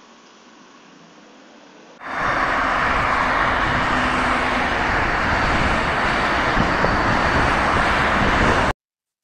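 Road traffic on a multi-lane street: cars and a van driving past close by, a loud steady rush of tyres and engines. It cuts in abruptly about two seconds in, after faint street sound, and stops dead near the end.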